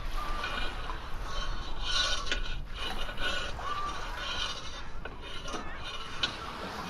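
Rasping and scraping of wood with scattered knocks and occasional creaks, as on the deck of a wooden sailing ship.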